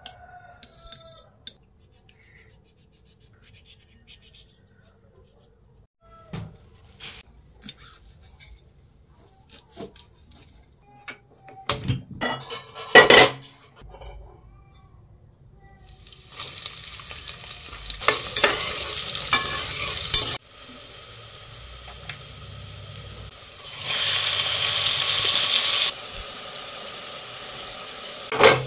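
Mutton curry sizzling in a hot pan while a metal spoon stirs and scrapes it, after a loud clatter of metal utensils against the pot. The sizzle swells loudly for a couple of seconds near the end.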